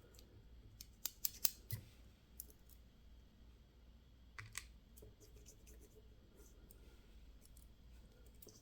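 Small metal lock parts and tools clicking sharply while a pin-tumbler lock cylinder is taken apart: a quick run of about four clicks a second in, then a couple more near the middle.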